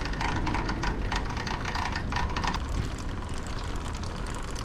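Yamaha Ténéré 700 drive chain chattering against its OEM chain roller: a fast, dense clatter over a low rumble, easing after about two and a half seconds. Greasing the roller has not stopped the chatter.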